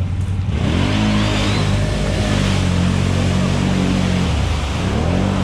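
Can-Am Renegade ATV's V-twin engine revving hard as it churns through a deep mud hole, with a rush of splashing mud and water from the spinning tyres. The revs climb sharply about half a second in, hold high, drop back just after four seconds, then climb again near the end.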